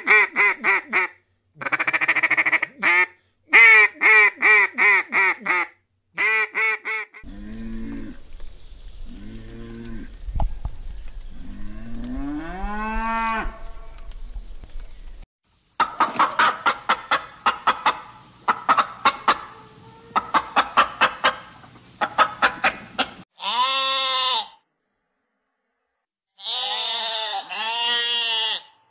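Farm animal calls one after another: geese honking in quick runs for the first six seconds, then a cow mooing in long low calls that rise in pitch, then a fast run of short sharp calls, and a few separate higher calls near the end after a short silence.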